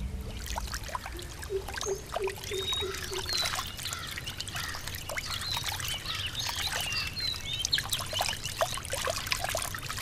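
Shallow stream of water trickling and splashing along a dirt channel, with birds chirping over it. About a second in, a low call is repeated about seven times.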